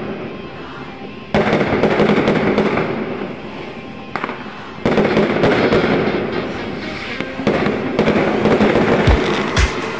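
Fireworks going off: dense, continuous crackling that jumps suddenly louder about a second in and again about halfway, with sharp, deep bangs near the end.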